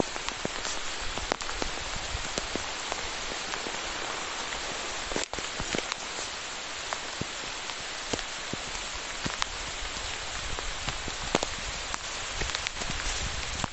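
Heavy rain falling: a steady hiss with many sharp, irregular drop impacts close by.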